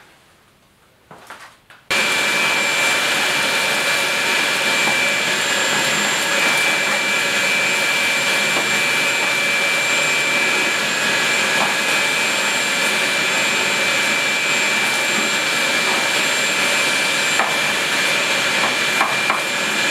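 Shop vacuum switched on about two seconds in and running steadily with a high whine, sucking up grease and carbon crud scraped from a barbecue firebox. A few ticks of debris are heard near the end.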